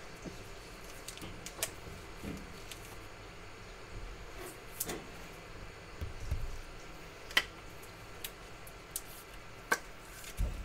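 Scattered light clicks and taps from handling trading cards and their packaging, a handful of separate knocks with a low bump near the end, over a quiet room hum.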